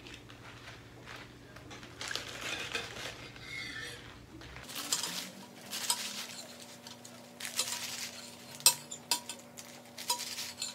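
Serrated knife chopping romaine lettuce on a countertop: blade strokes cutting through crisp leaves and stalks and knocking the surface beneath. The chopping turns into a steady run of quick cuts about halfway through, with one sharper knock near the end.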